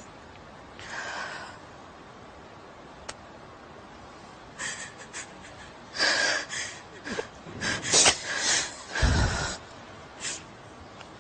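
A woman crying: ragged sniffs, gasping breaths and a few choked sobs, coming thickest from about six seconds in, with the loudest, a heavy low blast of breath, about nine seconds in.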